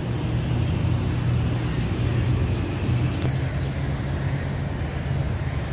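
Steady low mechanical drone with a constant low hum.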